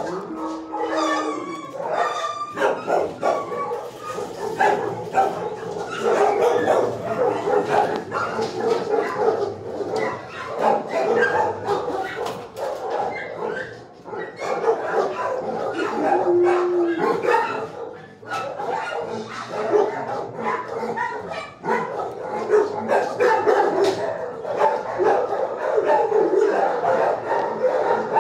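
Several shelter dogs barking almost without pause, the barks overlapping into a continuous din, with a brief higher held note near the start and another about halfway through.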